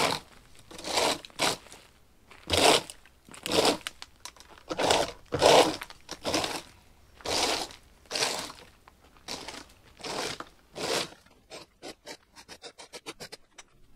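A rake scraping wet wood chips, bark and sawdust across the ground in repeated strokes, about one a second. Near the end the strokes turn into a quick run of short scratchy scrapes, several a second.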